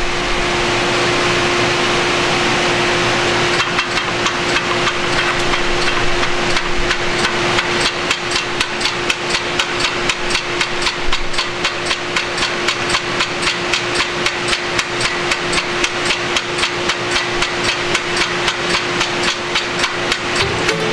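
Air-operated double-diaphragm pump feeding syrup through a filter press. Compressed air hisses with a steady whistle underneath, and a few seconds in the pump starts cycling, its air exhaust knocking and puffing in a steady rhythm of about four strokes a second.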